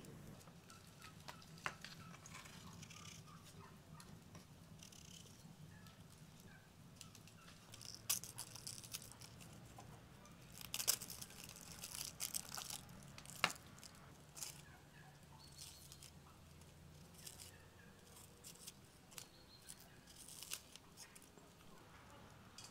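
Dry onion skins being peeled and torn off by hand, a quiet papery crackling and rustling in short irregular bursts.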